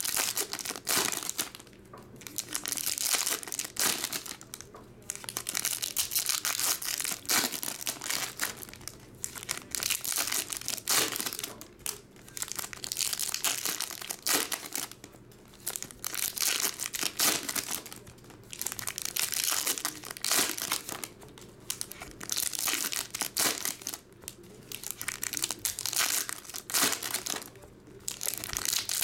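Foil trading-card pack wrappers being torn open and crinkled by hand, one pack after another, in repeated crackling bursts with short pauses between them.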